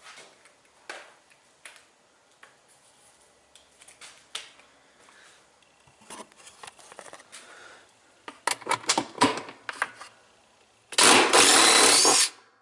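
Scattered clicks and metal knocks of hand tools on the washer's agitator, with a quick run of sharper knocks, then a power tool runs loudly for about a second and a half near the end and stops abruptly, working on the agitator wash plate bolt.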